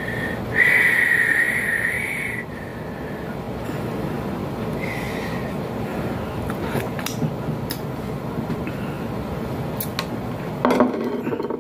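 Steady room hum from an air conditioner, with a high whistling tone for about two seconds near the start. A few sharp clicks of hands and plates follow, then a quick cluster of eating clicks and smacks near the end.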